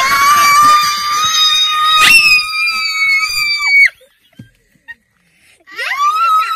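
A woman and a young girl screaming with excitement. One long, high scream is held for about four seconds, then a brief silence, then another scream near the end.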